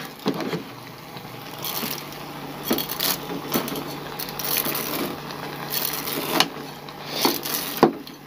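Slotted metal spoon scraping and clinking against an aluminium pot while vermicelli is stirred and pushed down into the water, in irregular strokes with a few sharp clinks.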